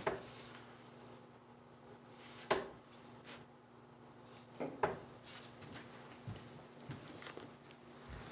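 Darts striking a dartboard: three sharp thuds about two and a half seconds apart, the second the loudest, with a few lighter clicks between.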